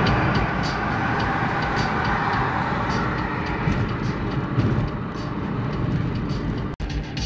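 Steady road and engine noise of a moving car, with faint regular ticks over it.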